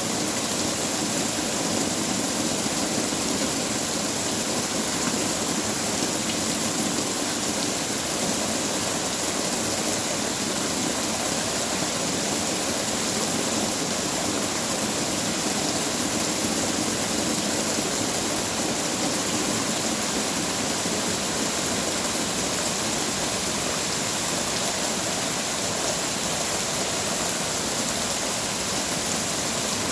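Heavy rain falling steadily in a dense, even hiss with no let-up.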